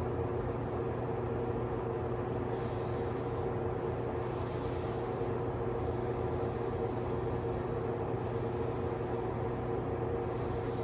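Steady background hum with a few held low tones that do not change.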